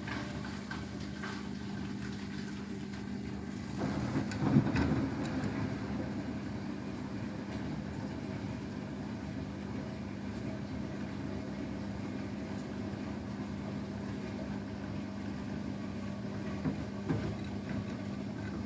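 Beko WTK104121W front-loading washing machine running its cool-down stage after a 90° quick wash: a steady hum, with a louder surge of churning about four seconds in and a short one near the end.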